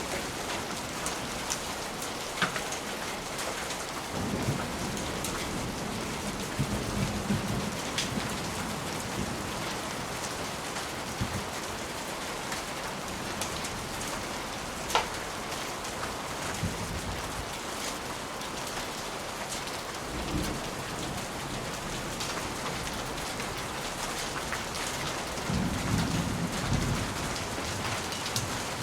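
Steady rain pattering, with several low rolls of distant thunder, the strongest near the end. A few sharp crackles from a fireplace stand out now and then.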